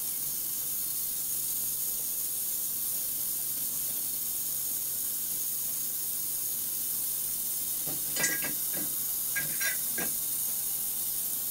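Steady high hiss of an ultrasonic cleaner running. A few light clicks and clinks come about eight to ten seconds in, as jars and the parts basket are handled on a watch cleaning machine.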